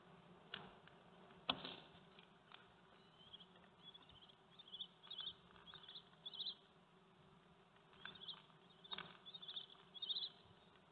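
A fly buzzing faintly in short, repeated bursts over a steady low hum. There is a sharp click about a second and a half in, and a fainter one before it.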